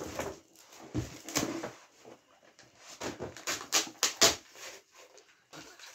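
Gift wrapping and packaging being handled and torn open: paper and cardboard rustling, with a run of sharp crackles that is loudest about three to four seconds in.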